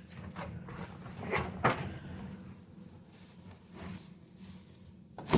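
Handling noises: a run of knocks and scuffing swishes, with two louder knocks in the first two seconds and a sharp knock near the end.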